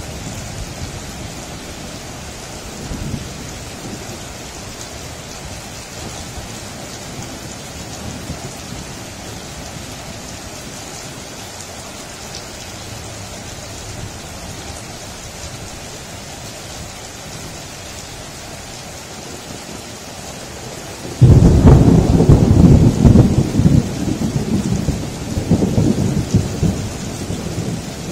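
Steady rain, then about 21 seconds in a sudden loud thunderclap that carries on as a long, deep rumble of thunder.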